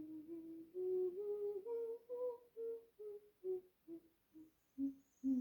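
A woman's voice quietly singing a major scale in solfège, one note per step. It climbs to the top note about two seconds in and steps back down to the starting note near the end.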